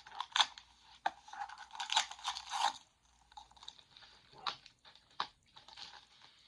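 Plastic packaging crinkling and crackling as it is cut and torn open with scissors, in irregular clusters with sharp clicks, busiest in the first three seconds and sparser after.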